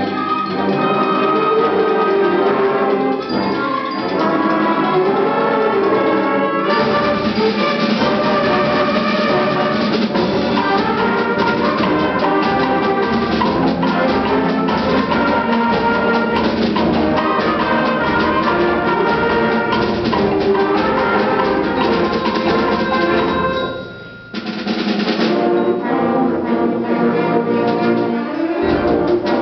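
School concert band playing, brass and winds with percussion. About seven seconds in, the percussion joins and the sound grows fuller; near the end the band breaks off for a moment and then comes back in all together.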